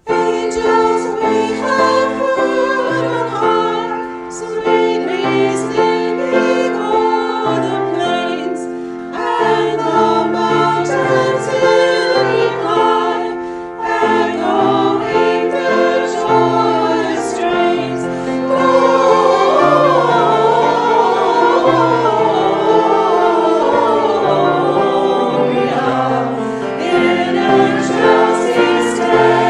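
A choir singing with instrumental accompaniment, a hymn or anthem.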